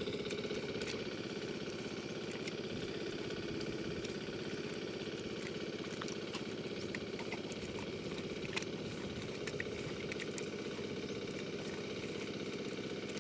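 A small engine running steadily at an even idle-like speed, with no change in pitch.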